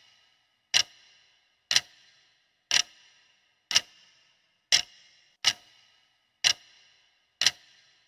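Countdown-timer sound effect: a clock ticking about once a second, each tick short with a brief ring after it.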